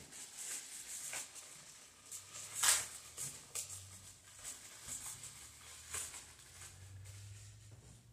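Plastic bag being handled, crinkling in short irregular crackles, with one louder crackle about two and a half seconds in.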